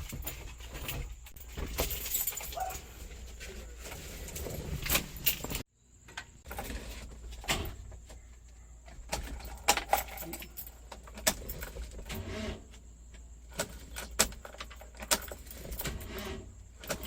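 Irregular clicks and light metallic rattling of objects being handled, over a low background rumble; the sound drops out abruptly for a moment about six seconds in.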